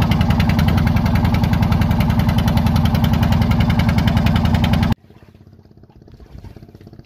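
Wooden fishing boat's engine running steadily under way with a fast, even pulse. About five seconds in it cuts off abruptly, leaving only a faint low background.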